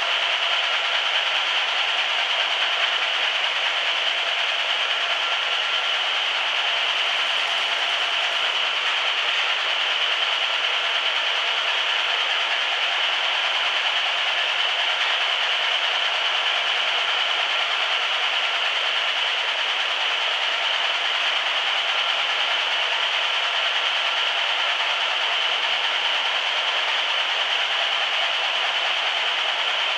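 Hanta Duster 300 area-rug beating machine running, its beaters striking a rug as it feeds through on the rollers: a loud, steady mechanical noise that does not let up.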